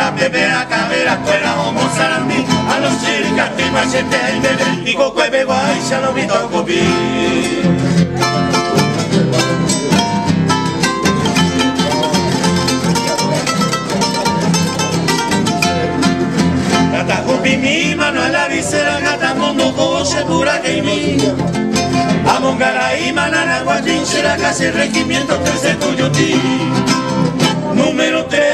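Three acoustic guitars strummed and plucked together in a brisk rhythm, playing a Paraguayan polca, with men's voices singing along in parts.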